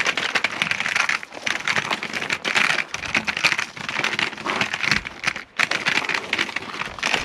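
Magnetic sweeper pushed over gravel, the gravel crunching under its wheels in a dense crackle, with a brief pause about five and a half seconds in.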